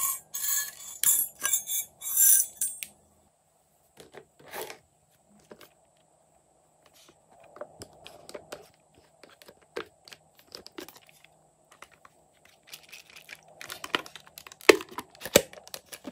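Hands handling a hard-plastic toy playset case: a burst of rustling and tearing in the first few seconds, then scattered clicks and knocks of the plastic, sharpest and loudest near the end.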